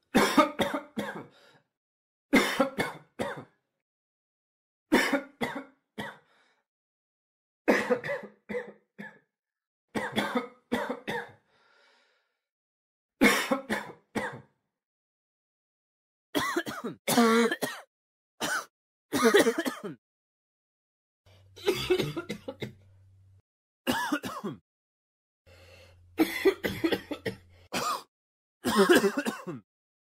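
A person coughing again and again in short bouts of several coughs each, a new bout every two to three seconds, with brief silences between.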